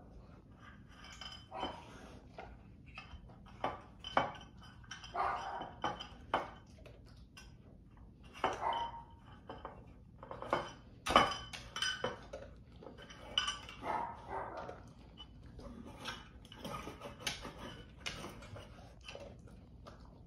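Metal muffin tin clinking and scraping on the floor as a dog noses into its cups and pulls out the socks covering them: irregular knocks and clanks of varying strength, the loudest about eleven seconds in.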